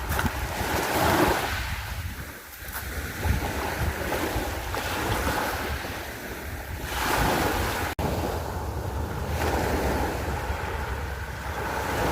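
Sea waves washing onto the shore in swelling surges, with wind rumbling on the microphone. A momentary dropout comes about eight seconds in.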